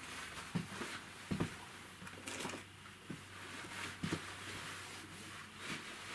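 Hands handling a product and its packaging: irregular light knocks and taps, about half a dozen, with a brief rustle of packaging midway.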